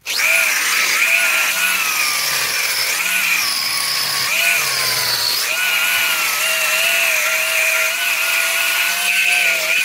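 Corded angle grinder cutting out the old mortar joints between stone patio slabs, ahead of re-pointing. The motor's whine dips and recovers in pitch as the disc bites into the joint.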